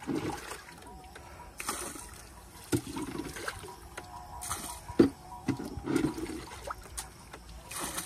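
Water being bailed out of a wooden boat with a plastic container: irregular splashing and pouring, with a few sharp knocks.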